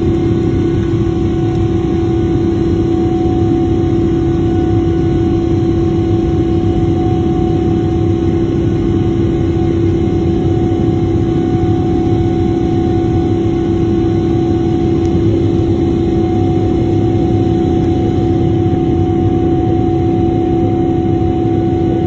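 Boeing 777-300ER's GE90-115B turbofan engines at climb power, heard inside the cabin: a steady, loud rush of engine and air noise with a constant droning tone.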